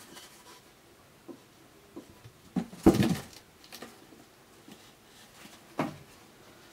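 A cat jumping up onto a cardboard box: a sharp thump with a short rattle about three seconds in, among a few lighter knocks and taps from the cats moving about.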